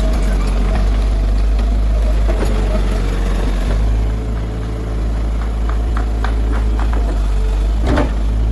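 Kobelco SK100-1 excavator's diesel engine running steadily with a low hum, a few light clicks partway through, and one sharper knock near the end.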